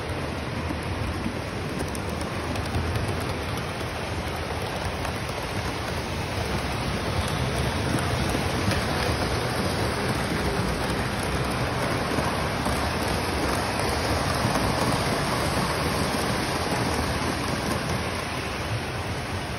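Three-rail O-gauge model trains running on the layout's track, a steady rolling rumble and whir of wheels and motors. It grows a little louder in the middle as a train passes close.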